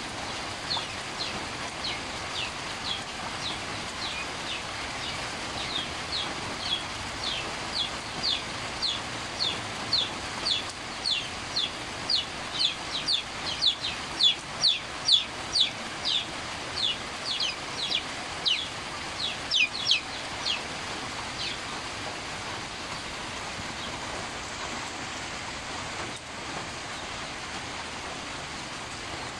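Steady rain falling on dense tropical foliage, with a bird repeating short, high, falling notes about two a second; the calls grow louder toward the middle and stop about two-thirds of the way through, leaving only the rain.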